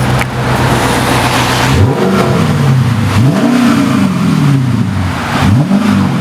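Car engine revved hard. After a steady run it rises in pitch and falls back about three times.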